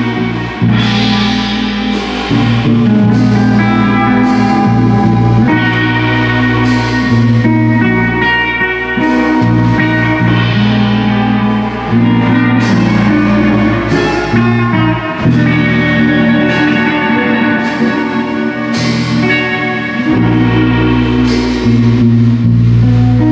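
Live jazz band playing: electric guitar lines over bass and a drum kit, with regular cymbal and drum hits.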